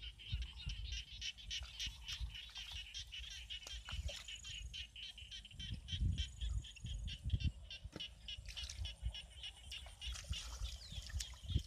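Hands and feet working in shallow mud and water, giving irregular low sloshing thumps, over a steady, fast, high-pitched chirring chorus of animals in the field.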